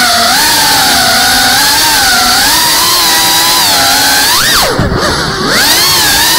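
GEPRC CineLog35 cinewhoop's brushless motors whining, the pitch wavering as the throttle changes. About four and a half seconds in the whine jumps up sharply, drops away with a brief dip in loudness as the throttle comes off, then climbs back.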